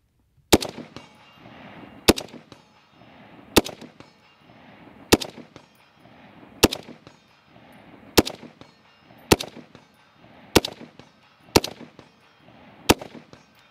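AR-10-style .308 semi-automatic rifle fired ten times in slow, steady succession, about one shot every second and a half, each shot followed by a short echo.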